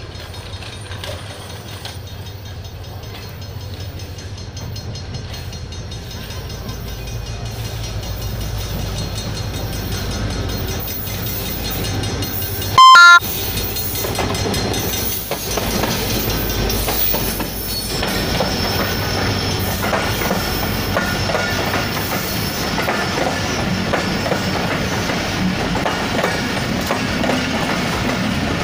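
HGMU-30 diesel-electric locomotive of a passenger express approaching, its engine hum slowly building. About halfway through comes a short, very loud horn blast. Then the passenger carriages roll past with wheels clacking over the rail joints and squealing.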